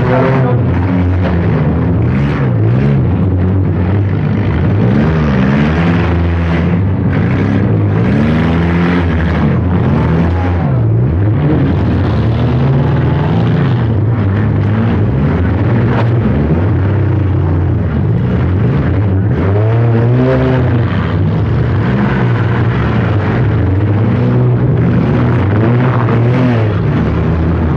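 Several four-cylinder demolition derby cars' engines revving up and down over one another, with a few sharp knocks.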